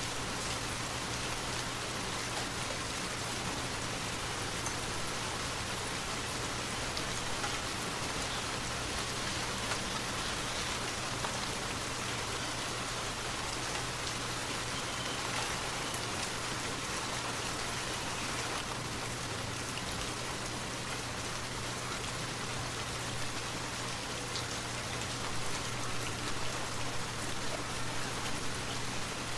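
Forest waterfall: a steady rush and spatter of falling water, even throughout, with a low rumble underneath.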